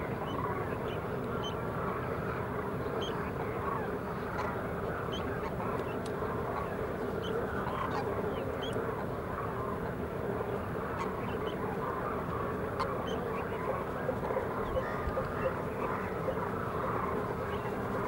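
A flock of demoiselle cranes calling, a steady dense chorus of many overlapping calls, with scattered high chirps of small birds over it.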